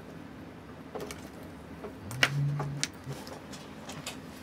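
Scattered small sharp clicks and ticks of watch-repair tools on a watch movement, the loudest about two seconds in, where a brief low hum also sounds for under a second.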